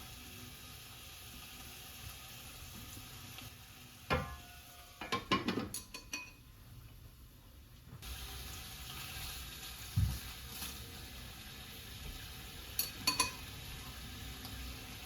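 Food sizzling as it is stir-fried in a pan. A burst of clattering strikes, like a utensil against the pan, comes about four to six seconds in, with a single dull knock near ten seconds and a couple more clacks near the end.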